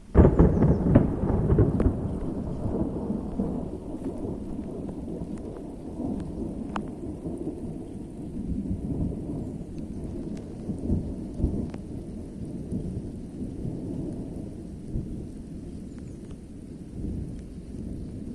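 A thunderclap from a nearby lightning strike: a sudden loud crack at the start, then a long low rumble that slowly fades. The uploader takes these powerful rounded strikes for positive cloud-to-ground lightning.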